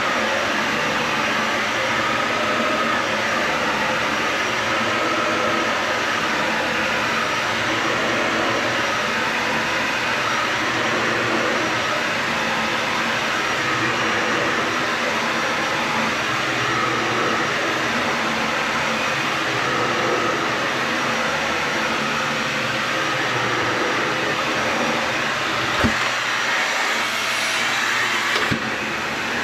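Vacuum cleaner running steadily as it is pushed over carpet, with a sharp knock near the end.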